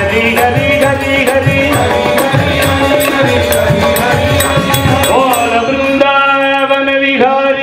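Devotional bhajan: a male voice singing over harmonium, with hand-drum strokes and even, quick clicks of small hand percussion. About six seconds in, the drum and clicks stop and the voice and held harmonium notes carry on.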